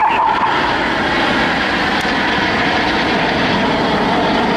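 Steady rushing jet noise from a BAE Hawk T1 in flight, its Adour turbofan running.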